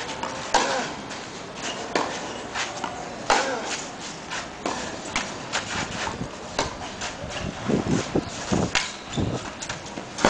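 Tennis rally on a clay court: sharp racket-on-ball strikes every second or two, with shoes scuffing on the clay between them.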